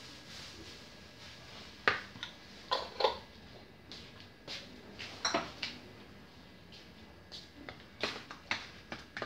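Irregular knocks and clinks of kitchen things being handled at the counter: a small glass spice jar and a plastic bowl of seasoned raw chicken being picked up and set down. The loudest come a little under two seconds in, around three seconds, and a little after five.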